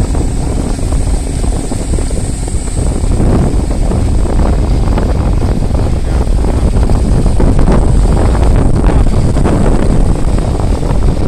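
Wind buffeting the microphone on a moving motorcycle, a loud low rumble with engine and road noise underneath. It grows a little louder about three seconds in.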